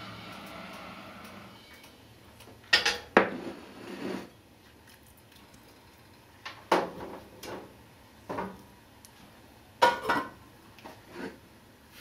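Metal ladle clanking against an enamel pot and a ceramic bowl as cooked wheat berries are scooped out: several separate knocks and clinks, loudest about three seconds in and near the end, as the lid goes back on the pot.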